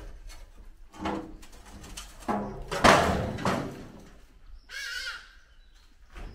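Timber formwork being knocked loose and stripped: a few knocks, then a loud wooden clatter about three seconds in that trails off. A short animal call is heard near the end.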